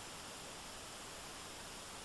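Steady, even hiss of a stream's running water.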